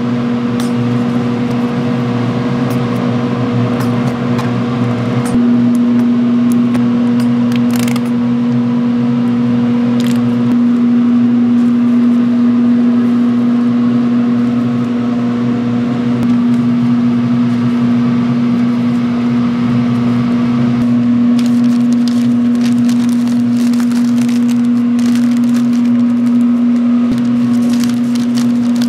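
A steady machine hum at one constant pitch, with crackling and clicks joining in over the second half.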